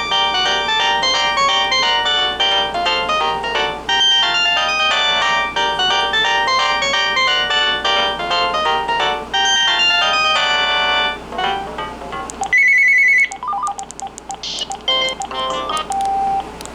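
Uniden D3280-2 cordless phone playing a many-note melody ringtone, which stops about eleven seconds in. A single short, high, steady beep follows about a second later, then scattered clicks and short tones.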